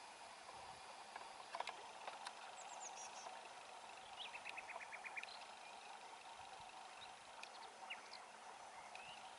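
Faint songbird calls: scattered high chirps, a short trill of rapid notes about halfway through, and a few rising chirps near the end, over a steady low background hiss.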